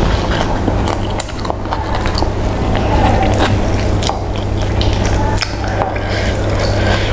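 A person chewing and biting food close to the microphone, with many small wet clicks and smacks, over a steady low hum.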